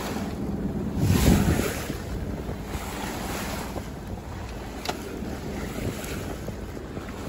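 Wind buffeting the microphone and sea water washing along the hull of a sailboat underway, with a louder surge of water about a second in.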